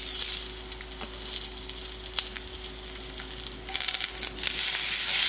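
Dumplings pan-frying in oil in a nonstick skillet: a steady sizzle with fine crackling and spitting. It grows louder from about four seconds in, as the dumplings are turned with chopsticks.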